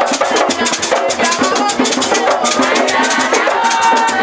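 A crowd singing a lively worship song together, over a fast, steady rhythm of shaken rattles and drums.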